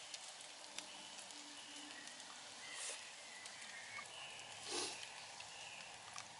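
Campfire crackling faintly in quiet woodland: scattered small pops, with two brief rushing swells about three and five seconds in.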